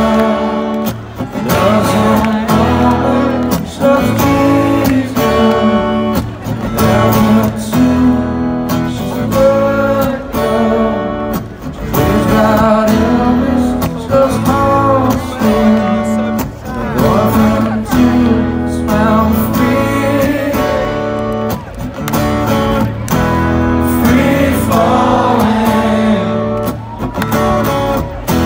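Live acoustic guitar strummed with a man singing over it, played loud through a festival PA.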